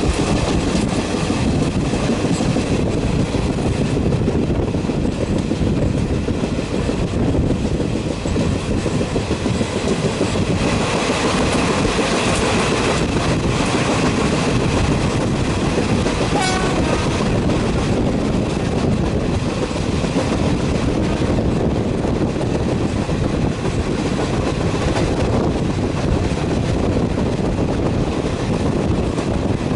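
Express passenger train running past: a steady, continuous rumble of coach wheels on the rails with clickety-clack over the rail joints.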